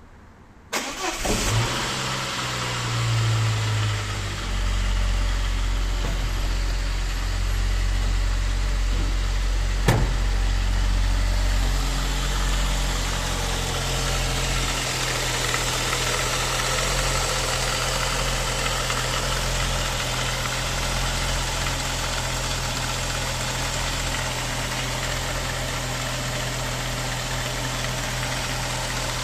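An engine starts about a second in, its speed rising and shifting for several seconds before it settles into a steady idle, with one sharp click around ten seconds in. The owner suspects it of knocking.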